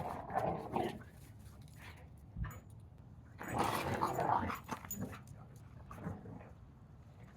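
A Catahoula leopard dog and a husky play-fighting roughly, with dog vocalisations in two bursts: one in the first second and a louder one about three and a half seconds in.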